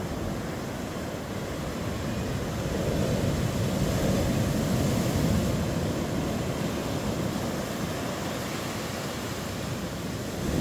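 Ocean surf breaking and washing in over a rock shelf, a steady rushing that swells about three seconds in and eases off again.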